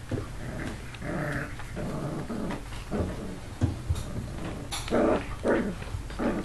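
Eight-week-old American Hairless Terrier puppy growling in a run of short bursts, loudest about five seconds in.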